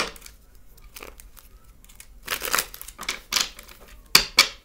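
A deck of oracle cards being shuffled and handled by hand: a run of papery rustles and flicks, with two sharper snaps about four seconds in.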